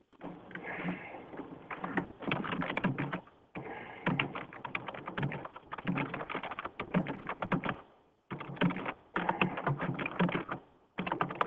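Typing on a computer keyboard in quick runs of keystrokes, with short pauses about three and a half and eight seconds in.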